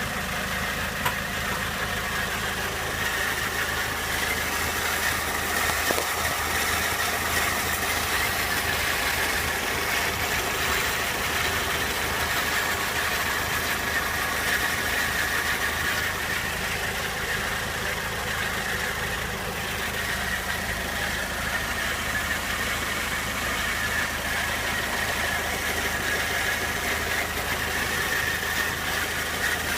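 Peugeot 206's 1.6-litre 16-valve four-cylinder petrol engine idling steadily, carrying a weird noise that the owner guesses comes from the clutch.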